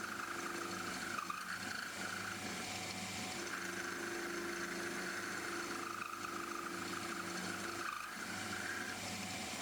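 Small metal lathe running and turning down the end of a 12 mm round bar. A steady motor hum sits under a wavering high whine from the cut, which breaks off for about a second near two seconds in and again near the end. The cut is noisy because the cutting insert is chipped.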